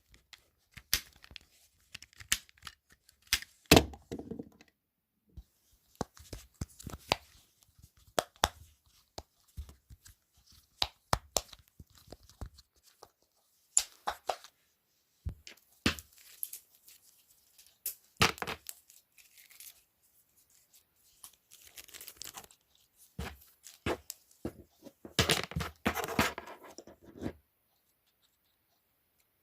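Fidget toys being handled: an irregular string of sharp clicks and taps with a few longer scratchy, tearing-like passes, the loudest stretch near the end, then stopping for the last couple of seconds.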